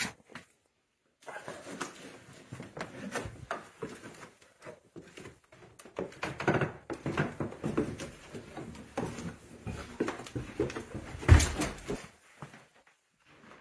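Irregular rustling, clattering and knocking of someone moving about and handling things in a small room, with a heavy thump about eleven seconds in.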